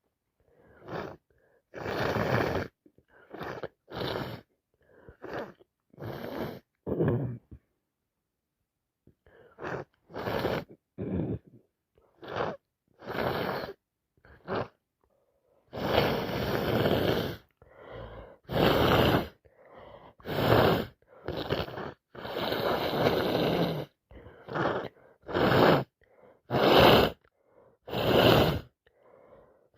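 A person with a head cold sniffing and blowing her nose over and over: a string of short, sharp bursts of breath, with a few longer blows of a second or two past the middle.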